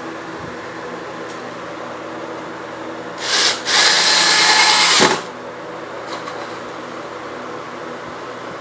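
Electric power drill spun up in a short burst, then run steadily for about a second and a half with a high whine before stopping suddenly. A steady low hum sits underneath throughout.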